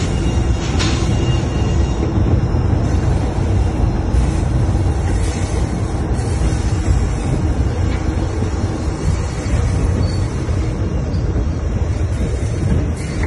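White Pass & Yukon Route passenger train running along the mountain grade, heard from aboard as a steady loud rumble of wheels and cars on the rails.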